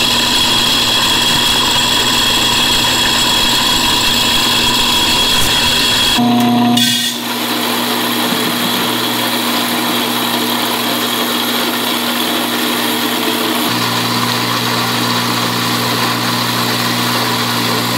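Electric corn grinder running steadily while cracking whole kernel corn, a constant motor hum with grinding noise. Its pitch and tone shift abruptly about six seconds in and again near fourteen seconds.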